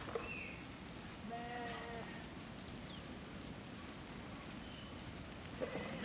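Sheep bleating in a moving flock: one wavering bleat about a second and a half in, and another starting at the very end, over a low steady background noise.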